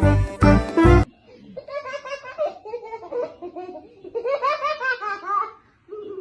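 A short stretch of background music cuts off about a second in, followed by high-pitched laughter in two spells of short, rising-and-falling peals.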